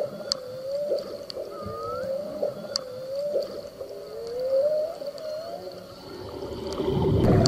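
Whale calls: a string of rising moans, about one a second, with a few higher squeals and several sharp clicks. Near the end a rush of noise swells in.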